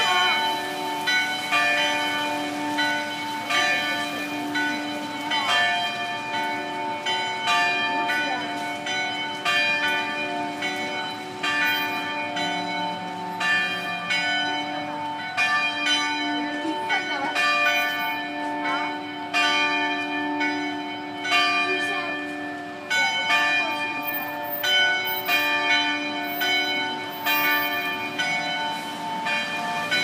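Church tower bells ringing, several bells of different pitch struck in an uneven succession about once or twice a second, each stroke ringing on and overlapping the next.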